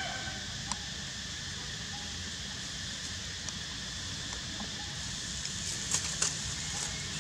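Steady outdoor background hiss with a few sharp crackles of dry leaf litter as macaques move over it: one about a second in and two close together near the end.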